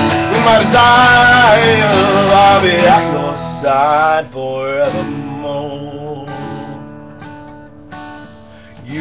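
Acoustic guitar strummed while a voice sings long, gliding notes over it for the first five seconds. After that the chords ring and slowly die away, and a fresh strum comes in at the very end.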